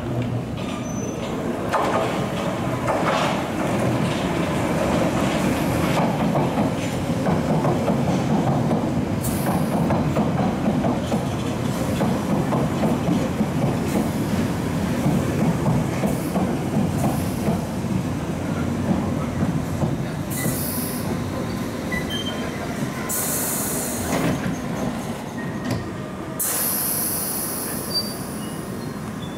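Piccadilly line 1973 Stock Tube train running along the platform: a steady rumble of wheels on rail, with some wheel squeal and clatter. Short bursts of air hiss come through several times, the longest near the end.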